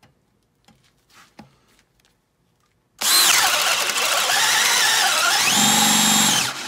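Makita XPH10 brushed cordless hammer drill, in drill mode on speed 2, boring a 1-inch self-feeding auger bit into a wooden beam. It starts about three seconds in. The motor's whine sags under load, climbs back up, then stops suddenly near the end.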